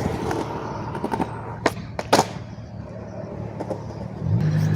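Skateboard wheels rolling over concrete, with two sharp cracks of the board's pop and landing about half a second apart, a little under two seconds in. Near the end, a steady engine hum of a passing motor vehicle rises in.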